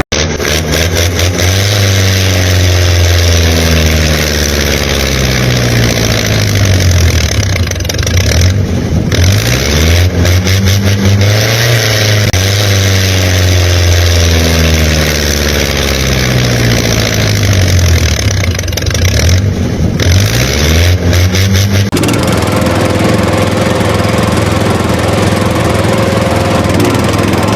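An engine revving up and dropping back again and again, then running more steadily for the last few seconds.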